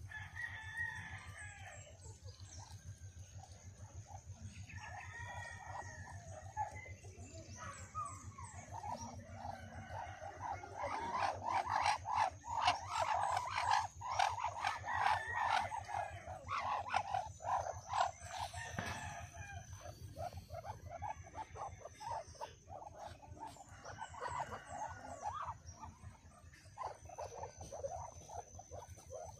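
Farmyard chickens clucking, with a rooster crowing, in a busy run of calls that is loudest in the middle.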